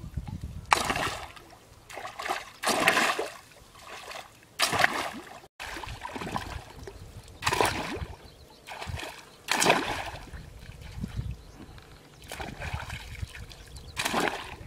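Shallow muddy water splashing as an electrofishing pole is swept and slapped through it, a separate splash every second or two, with the sloshing of legs wading.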